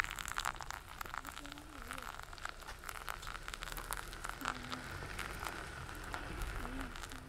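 Hot water poured in a thin, steady stream from a gooseneck kettle onto coffee grounds in a paper filter, with many small sharp clicks throughout.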